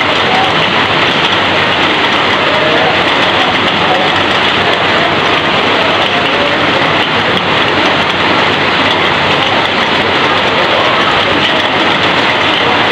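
Heavy rain falling steadily and pouring off the edge of a corrugated metal roof in streams: a dense, even hiss of water with no breaks.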